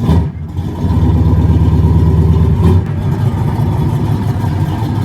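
A car engine running with a rapid low pulsing. It swells from about a second in and eases slightly a little before three seconds.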